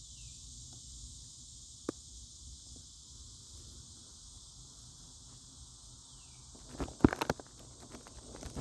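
Faint steady high-pitched hiss, with a single click about two seconds in and a cluster of clicks and knocks near the end.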